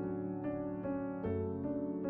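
Background piano music, single notes played at a gentle, even pace of about two to three a second.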